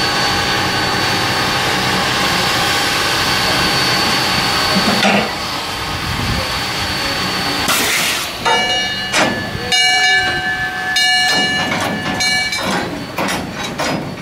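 0-6-0 saddle-tank steam locomotive hissing steam steadily for about five seconds. From about eight seconds in it moves slowly, with a series of sharp chuffs and knocks and a high-pitched squeal that comes and goes.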